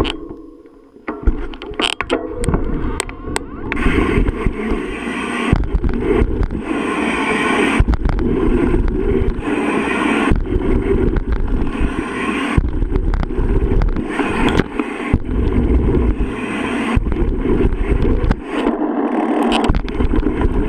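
Mountain bike riding fast along a dirt trail, heard through a bike- or helmet-mounted action camera: heavy wind buffeting on the microphone and tyres rolling over dirt, with a few sharp knocks and rattles from the bike early on.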